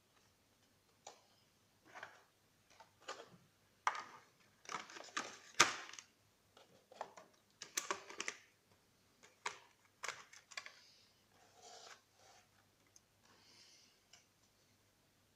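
Cardboard box and clear plastic blister tray being handled: irregular clicks, crinkles and light knocks as the tray holding three plastic bottles is taken out and set down on a table, the sharpest knock about five and a half seconds in.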